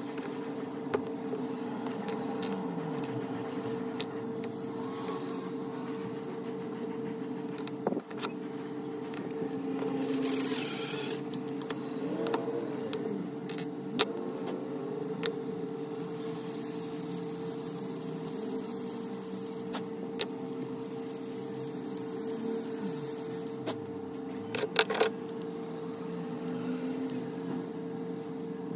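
Knife handle parts being handled on a wooden workbench: scattered light clicks and knocks of steel pins, a steel tang and wooden handle scales, over a steady background hum.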